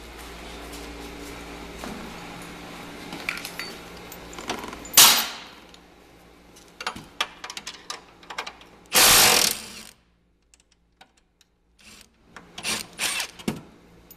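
Cordless impact driver running on a snowmobile tunnel fastener, with a short burst about five seconds in and a longer, loud burst around nine seconds. Sharp metallic clicks and rattles follow near the end as the fastener and tools are handled.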